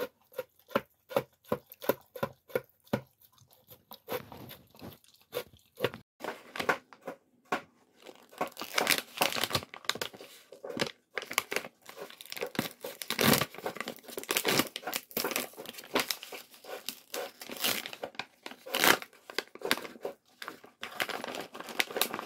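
A dog eating from a plastic slow-feeder bowl, a regular series of clicks about three a second, for the first few seconds. From about eight seconds in, a paper dog-treat bag is crinkled and torn open, a loud, continuous crackling.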